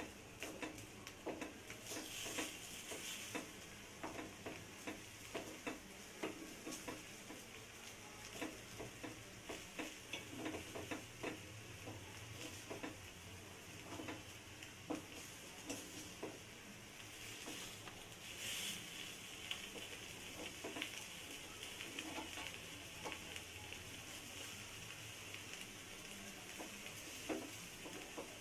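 Egg omelet mixture frying in oil in the cups of a paniyaram pan, with a faint steady sizzle and frequent small clicks and taps as the pieces are turned over.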